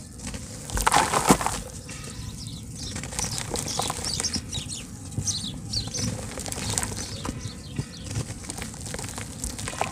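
Soft, dry handmade slabs of red dirt crumbling in hands and breaking apart in a tub of water, with wet splashing and crackly rustling as the pieces fall in; the loudest burst comes about a second in.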